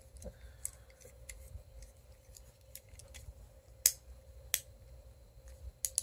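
Plastic fidget cube being fiddled with in the hand: scattered small clicks from its buttons and switch, the two loudest about four seconds in, half a second apart.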